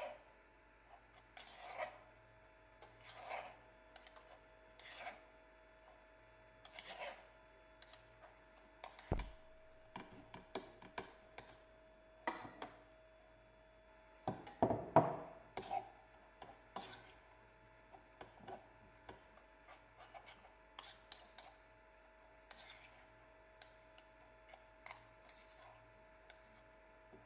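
Metal spoon scraping and pressing tangerine purée through a fine-mesh metal sieve in short strokes every second or two, with light clinks of spoon on mesh. A louder cluster of scraping and splashing about 15 seconds in, as more purée is poured into the sieve.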